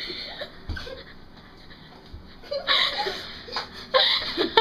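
Domestic cat meowing, several short cries starting about halfway through.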